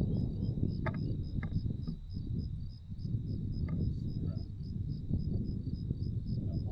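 Crickets chirping in an even, rapid rhythm with a steady high insect trill, over a louder low rumble.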